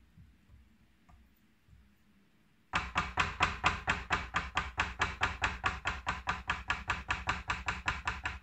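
A rapid, very even series of sharp knocks, about six a second, starting abruptly about three seconds in and stopping sharply near the end, with a steady low hum beneath. Before it there are only faint small clatters.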